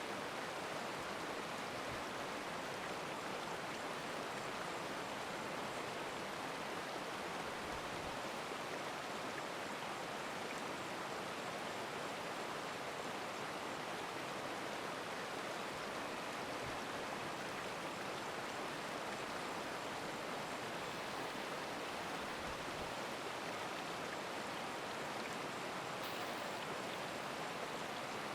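Steady rushing of a flowing stream, an even wash of water noise that does not change.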